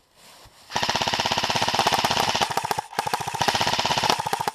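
Airsoft rifle firing close by on full auto: a rapid, even rattle of shots in two long bursts with a brief break about three seconds in.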